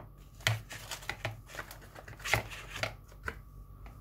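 Irregular clicks and knocks of insulated screwdrivers being lifted out of their box tray and handled, loudest about half a second in and again a little past the middle. A faint steady high tone sits underneath.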